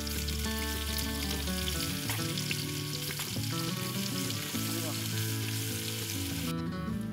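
Stone-grilled bibimbap sizzling and crackling in its hot stone bowl, over background music of steady held notes. The sizzle cuts off suddenly about six and a half seconds in.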